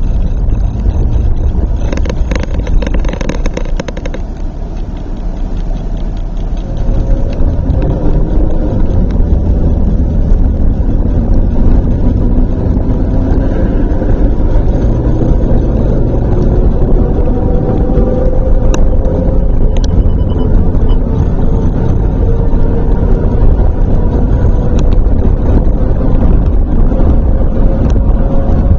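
Vehicle engine and tyre rumble heard from inside the cab as it drives down runway pavement. The engine note rises steadily as the vehicle picks up speed.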